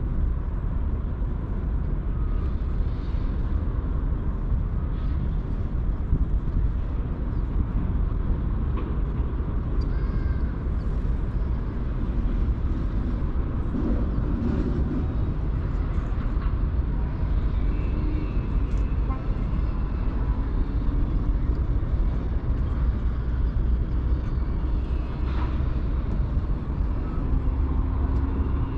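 Steady low outdoor rumble, strongest in the deep bass and unbroken throughout, as of wind on the microphone or far-off traffic.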